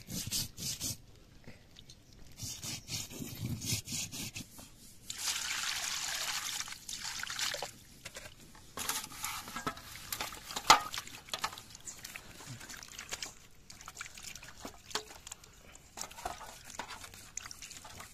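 Hands washing singed goat legs in water in a steel plate: sloshing and splashing, with the legs clicking and knocking against the metal, one sharp knock near the middle. Before that, about two seconds of steady rushing water.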